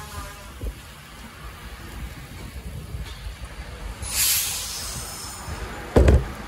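Low rumble of electric trains at a station platform, with a sharp hiss of released air about four seconds in that fades away over a second. A brief, loud thump near the end.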